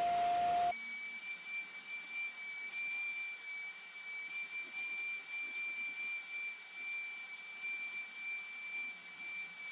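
Portable carpet spot cleaner's suction motor running while its nozzle is worked over the carpet to draw the sprayed water back up. For the first moment it is a louder, lower steady hum close up; then, about a second in, it changes suddenly to a thinner, steady high-pitched whine heard from further off.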